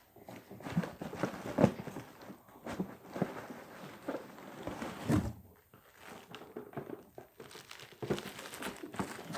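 Bubble wrap and cardboard packaging rustling and crinkling as a boxed die-cast model car is handled and pulled out, with a few short knocks, the sharpest about a second and a half in and again about five seconds in.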